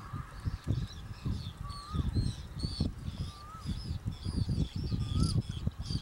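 Birds calling: many short, high chirps several times a second, and a lower rising-then-falling whistled note repeated about every second and a half. Underneath runs an irregular low gusty rumble of wind on the microphone.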